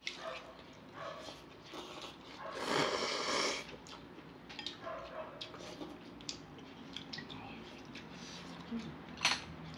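Close-up eating sounds: a long slurp of noodles and broth about three seconds in, chewing, and chopsticks clicking against bowls, with one sharp click near the end.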